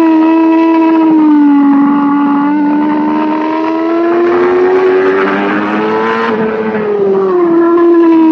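Racing motorcycle engine at high revs, heard from on board the bike. The pitch dips in the first second or so, climbs slowly through the middle, drops sharply about six and a half seconds in, then holds steady.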